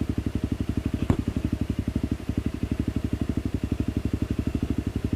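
Trail motorcycle engine running slowly at low revs, an even chugging of about ten beats a second, with one sharp knock about a second in.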